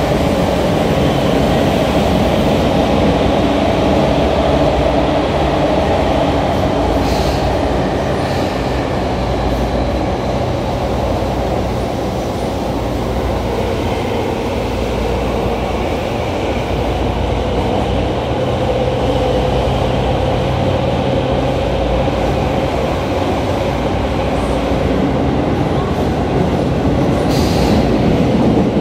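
Tobu 9000 series electric train running through the Yurakucho line tunnel, heard from inside the car: a steady rumble of wheels and motors with a low hum. A few brief high squeaks or clicks come about seven and eight and a half seconds in and again near the end.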